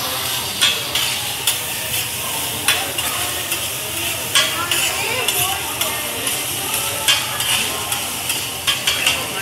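Fried rice sizzling on a teppanyaki flat-top griddle while two metal spatulas scrape through it and clack against the hot plate, with a sharp click every half second to a second over the steady hiss.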